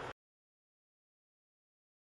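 A steady rushing noise cuts off abruptly a fraction of a second in, leaving complete digital silence.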